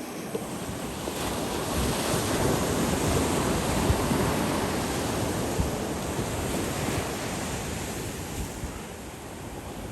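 Surf washing onto the beach, swelling over the first few seconds and slowly easing off, with wind buffeting the microphone.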